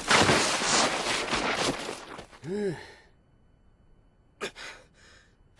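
Animated ninja skidding to a halt across grass: a loud hissing swoosh sound effect that fades out over about two and a half seconds. It is followed by a short breathy voice sound that rises and falls in pitch, then near quiet with a couple of faint rustles.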